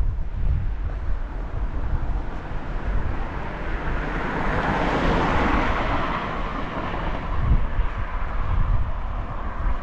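Wind buffeting the microphone, with a vehicle passing on the street: its rushing noise swells to a peak about halfway through and fades away.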